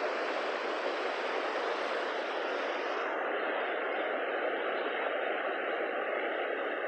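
Mountain creek rapids rushing steadily, with the highest part of the hiss dropping away about three seconds in.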